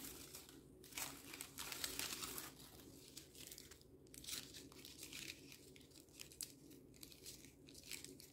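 Faint, irregular crinkling and rustling of paper scraps being wrapped and pressed by hand around a paper flower stem.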